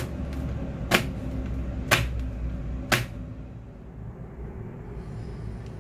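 An aluminium foil baking pan full of thick red-bean batter knocked down on a tabletop four times, about once a second, to settle and pack the batter.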